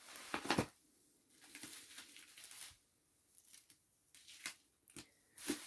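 Light handling sounds of packaging: scattered clicks and short rustles as items are picked up and set down.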